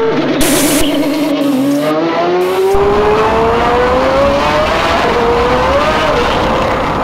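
Car engine sound effect revving and accelerating, its pitch climbing steadily, then dropping back about two-thirds of the way in as if changing gear, and rising again.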